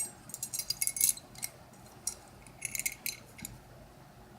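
Small metallic clicks and clinks from a stainless steel CRKT Eat'N Tool and its small carabiner being handled. They come in two clusters, one during the first second and another about two and a half seconds in.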